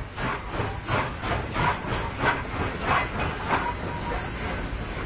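Footsteps scuffing along a gritty concrete footpath at a brisk walk, about three steps a second, over a low hum of road traffic.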